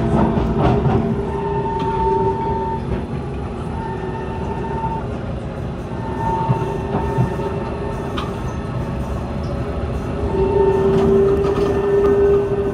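Interior running noise of a Kawasaki C151 MRT train pulling out of a station and running along an elevated track: a steady rumble of wheels on rail, with a high steady whine that comes and goes and a few faint clicks.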